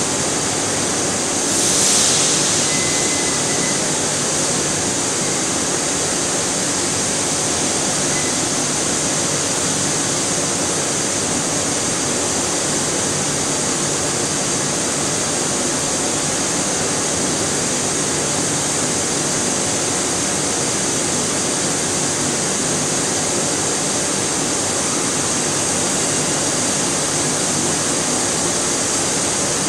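Steady machinery noise of a polyethylene pipe extrusion line running, a dense hiss with a low hum under it. A brief louder hiss about two seconds in.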